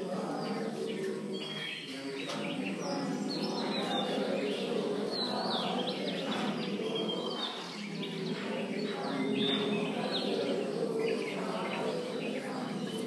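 A group of voices chanting Pali Buddhist verses in unison, a slow sustained drone, with high bird chirps scattered over it.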